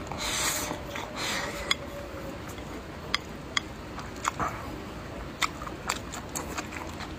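Close-up eating sounds: chopsticks scraping rice from a porcelain bowl into the mouth in the first second and a half, then chewing with scattered sharp clicks of chopsticks and mouth.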